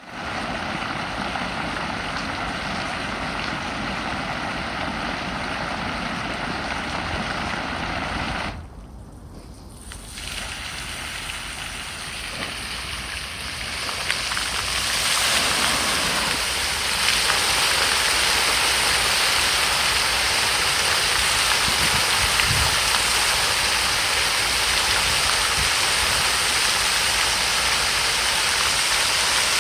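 Water fountain spraying: a steady rushing, splashing hiss. It dips sharply for a moment about nine seconds in, then returns and grows louder and brighter from about fifteen seconds on.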